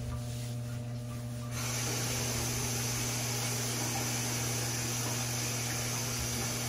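A steady low hum, joined about one and a half seconds in by a steady hiss that carries on.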